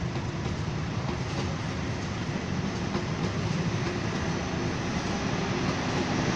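Railway baggage car and coaches passing close by at speed, steel wheels running on the rails in a steady noise that grows slightly louder toward the end.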